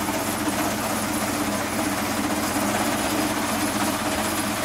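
A steady machine drone with a constant low hum, unchanging in level.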